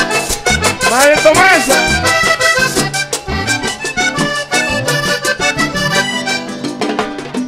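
Live vallenato band playing an instrumental passage: the diatonic button accordion carries the melody over percussion and bass.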